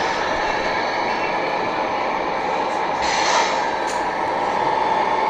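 Steady running noise of radio-controlled Tamiya model trucks driving around a layout, under the general hum of a busy hall, with a short burst of hiss about three seconds in.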